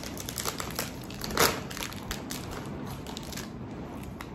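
Plastic bag of Werther's Original caramel popcorn crinkling and crackling as it is opened and handled, with one sharper crackle about a second and a half in; the crackling thins out near the end.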